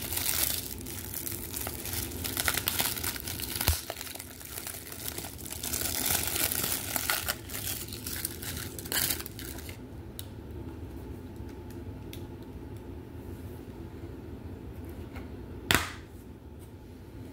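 Blu-ray packaging being handled: crinkling and rustling of the plastic case and its cover for about the first ten seconds, then quieter handling. Near the end comes one sharp snap as the plastic Blu-ray case is pried open.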